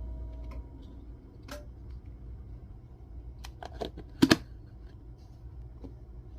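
Light clicks and knocks of the beetle's container being handled and set into a mini fridge, the loudest a sharp double knock about four seconds in, over a low steady hum.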